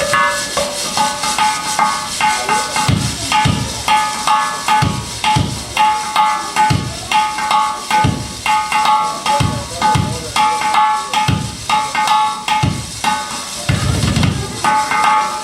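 Live percussion music: quick repeated short pitched strokes over deep drum thumps in a steady rhythm.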